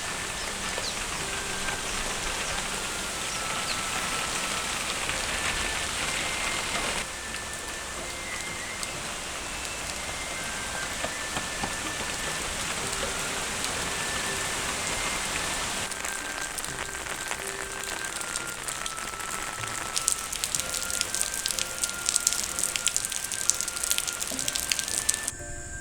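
Steady rain, with a soft melody of background music faintly over it. Over the last few seconds a quick run of sharp clicks rises above the rain.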